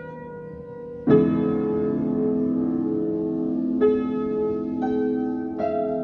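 Background piano music: slow, sustained notes and chords, with a fuller chord struck about a second in and new notes about every second or two after.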